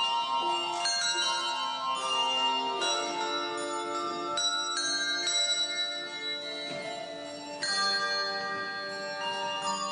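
Handbell choir ringing: chords of struck handbells that ring on and overlap. The playing eases off for a moment, then a loud chord is struck about three-quarters of the way through.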